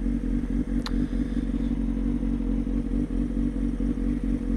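Kawasaki ZX-6R 636's inline four-cylinder engine running at a steady, unchanging note, with one brief click about a second in.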